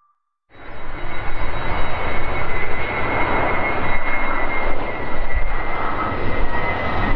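Boeing 767-300ER's twin turbofan engines running at takeoff power, a steady loud rumble with a high fan whine, starting about half a second in.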